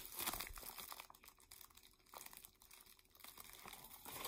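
Clear plastic bag of soft-plastic ribbon tail worms crinkling as it is handled, with scattered crackles.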